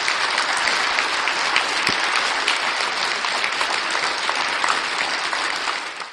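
Audience applauding steadily, a dense patter of many hands clapping, which cuts off abruptly near the end.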